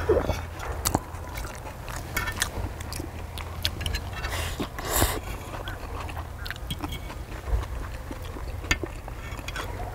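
Eating at an outdoor table: chewing, and metal forks and knives clicking and scraping on a cast-iron pot-lid griddle in scattered sharp strokes, over a steady low rumble.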